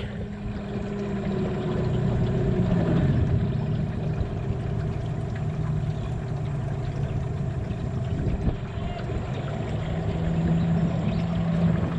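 Outboard motor on a small aluminium tinny running steadily under way, its pitch shifting about a quarter of the way in as the throttle changes.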